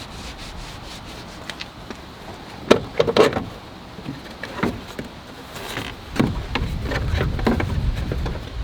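Scattered knocks and clicks of tail light parts and tools being handled on a car, the loudest a few quick ones about three seconds in, over a low rumble that grows in the second half.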